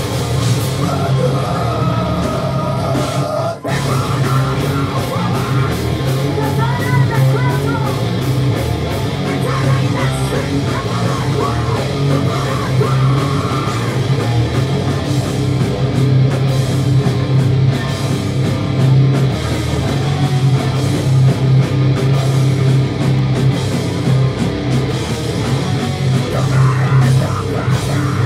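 Hardcore punk band playing live and loud: distorted electric guitars, bass and drums with shouted vocals, with a short break in the music about three and a half seconds in.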